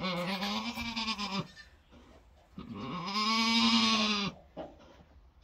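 Boer goat doe in labor crying out: two long, drawn-out bleats, the second, about two and a half seconds in, louder, each rising and falling slightly in pitch.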